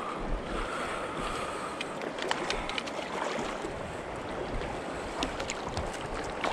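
Shallow river flowing and rippling over a pebble bed, with a few light clicks.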